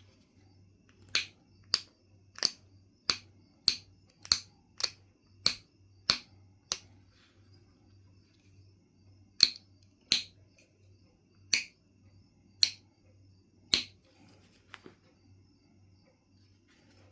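Sharp clicks of flakes snapping off a piece of Knife River Flint as it is knapped. A quick run of about ten comes roughly every half-second, then after a short pause five more come at a slower pace.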